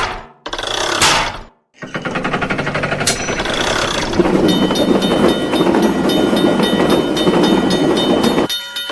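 Railway crossing warning bell ringing in a steady repeated rhythm over the rumble of a passing train, starting with a fast rattle and cutting off abruptly near the end.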